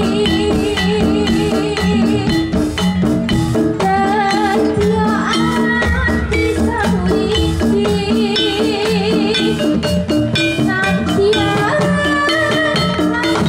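Live Javanese gamelan playing: struck metallophones (saron and demung) ringing out steady runs of notes over hand-played kendang drum strokes, with a woman singing into a microphone.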